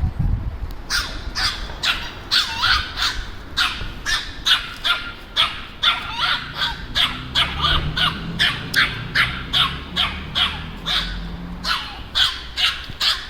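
Small dog barking rapidly in short, high-pitched yaps, about two to three a second, starting about a second in.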